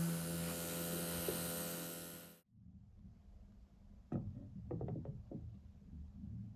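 A steady electric hum with hiss, like a small motor running, cuts off abruptly; then a few light taps and knocks on a hard surface.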